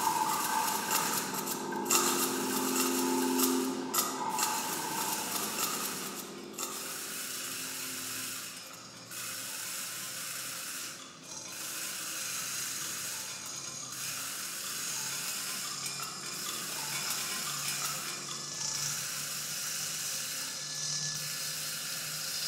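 Experimental improvisation of amplified objects and live electronics: a dense scraping, ratcheting noise texture with short breaks about every two seconds. Held mid-range tones sound over it for the first few seconds, and a low hum comes in near the middle.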